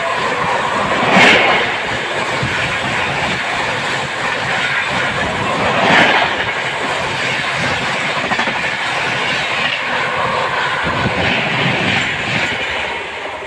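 Train wheels clattering steadily over the rail joints as the train runs along the track, with two louder clanks: one about a second in, another about six seconds in.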